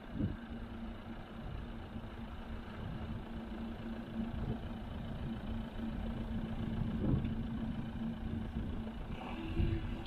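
Motorhome engine running with a steady low rumble and hum, as the vehicle drives along.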